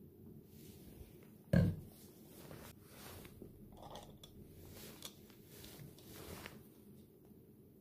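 Plastic handling sounds from an automatic foaming soap dispenser: one sharp knock about a second and a half in, then light scrapes and small clicks as its lid is fitted and pressed on.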